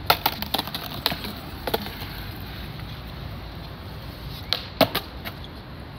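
Skateboard tricks on smooth concrete: sharp cracks of the tail popping and the board clacking down. One cluster comes in the first two seconds and another about four and a half to five seconds in, the loudest near five seconds, over a steady low rolling noise.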